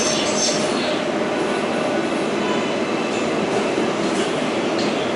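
Inside an R188 subway car in motion: the steady running noise of the train, wheels on rail and car body rumbling evenly.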